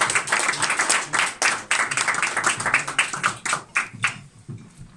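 A small audience applauding, many hands clapping quickly and unevenly; the clapping thins out and dies away about four seconds in.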